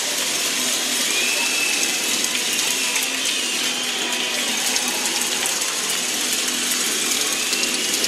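Hockey arena crowd clapping and cheering after a home goal: a dense, steady patter of applause.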